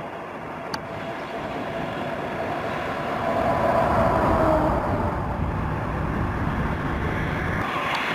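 A motor vehicle passing close by on the highway: road and engine noise swells to a peak about halfway through and then eases off, its pitch dipping slightly as it goes by.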